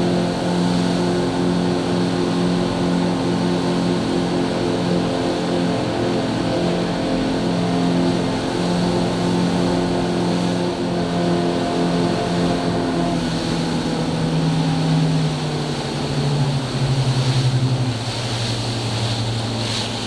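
Yamaha outboard motor running hard, pushing the boat at speed, a steady drone over rushing water and wind. About two-thirds of the way through, the engine note slides lower and settles there.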